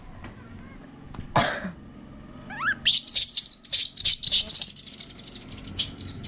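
Baby pet monkey crying: a hoarse cry about a second in, then short rising chirps, then from about three seconds a fast string of shrill squeals. It cries because it wants to go out.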